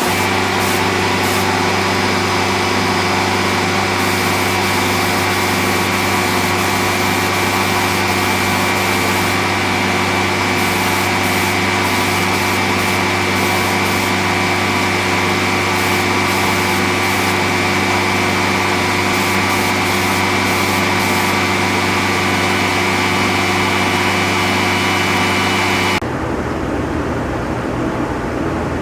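A paint spray gun hissing compressed air in repeated trigger pulls as a coat of paint goes on, over a steady machine hum that cuts off suddenly near the end.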